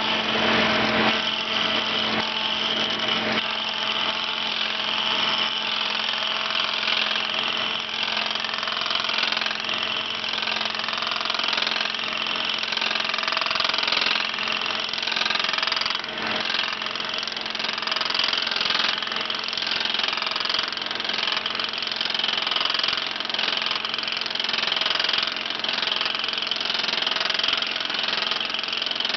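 Ober No. 11 copy lathe running, its spinning cutter wheel shaving a hickory axe handle blank to the pattern's shape. A steady machine drone with a constant low hum and a high whine.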